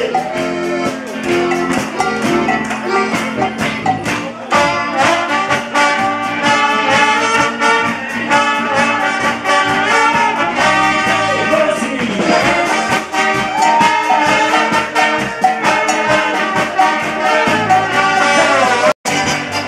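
Brass band folk music with a steady beat and crowd clapping along. The sound cuts out for an instant near the end.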